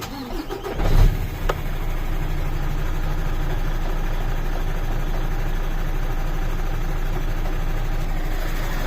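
Mercedes-Benz Actros 2541 truck's V6 diesel engine starting, catching about a second in at its loudest, then settling into a steady idle.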